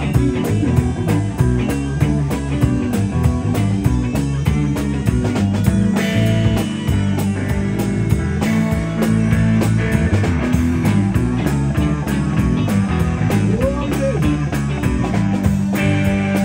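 Rock band playing live: a drum kit keeping a steady beat under electric bass and electric guitar.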